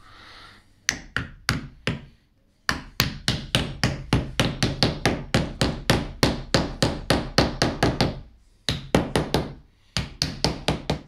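Claw hammer tapping panel pins through small wooden spacer fillets into the pine base rail between stair spindles. A few separate taps, then a long quick run of light strikes at about five a second, a short pause, then two shorter runs.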